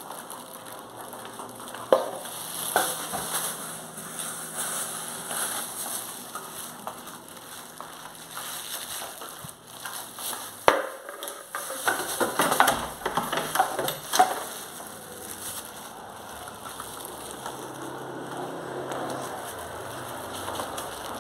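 Plastic bags crinkling and rustling close to the microphone as they are handled, with sharp crackles throughout. The crackling is loudest in a dense stretch a little past the middle.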